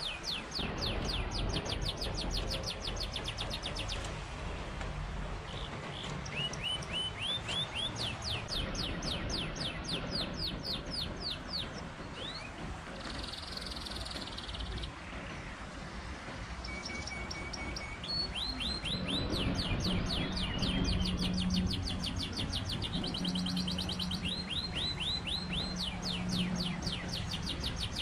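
Songbirds singing in repeated rapid trills over the steady rush of a river. A low steady hum comes in about two-thirds of the way through.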